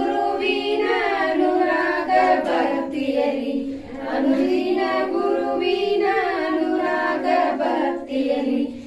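A group of women and children singing a Kannada devotional aarti song together, with no instruments, with a short pause between lines about four seconds in.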